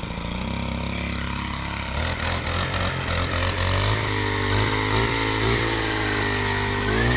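Small gas engine running at a low, uneven idle, its pitch wavering, then revving up with a rising pitch near the end.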